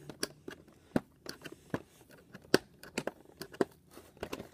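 Scissors snipping the packaging ties that hold a toy blaster in its box: irregular sharp clicks and snips, with rustling of the box and plastic.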